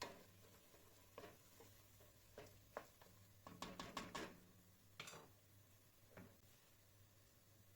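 Faint, irregular taps and knocks of kitchen utensils, about eight in all, mostly in the first five seconds, over a low steady hum.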